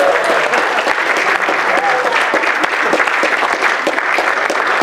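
Audience applauding: many people clapping steadily, with a voice or two heard over the clapping.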